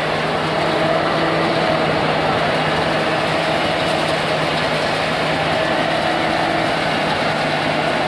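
Rice thresher running steadily as rice straw is fed into it: a continuous mechanical drone with a steady hum.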